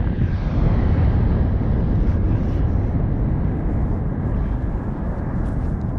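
Wind rushing hard over a paratrooper's helmet-camera microphone during the jump: a steady, dense buffeting heaviest in the low end.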